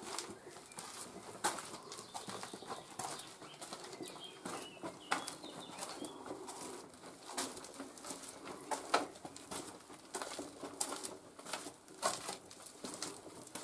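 Footsteps on the sandy stone floor of a narrow rock-cut passage: quiet, irregular scuffs and knocks a second or two apart.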